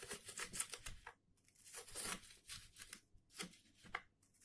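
Kitchen knife slicing an onion thinly on a wooden cutting board: a run of crisp cutting strokes in several quick bunches, with short pauses between them.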